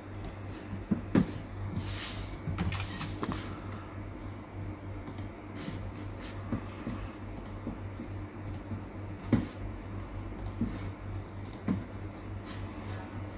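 Scattered computer mouse and key clicks as a computer is worked, a few sharp ones standing out, over a low steady hum. A brief hiss comes about two seconds in.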